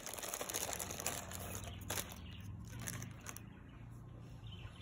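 Clear plastic liner inside a cookie tin crinkling and rustling as a hand rummages through the cookies, dying away about three and a half seconds in.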